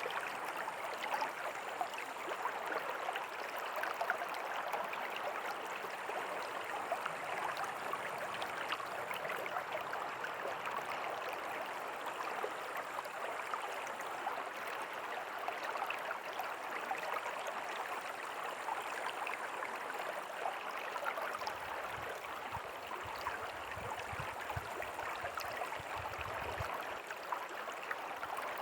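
River water flowing steadily over stones, a continuous rushing and splashing. A faint low rumble joins it for a few seconds after the midpoint.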